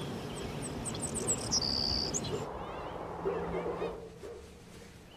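Countryside ambience: scattered bird chirps and a short, high, steady trill over an even outdoor hiss. After about two and a half seconds it drops away to quieter room tone.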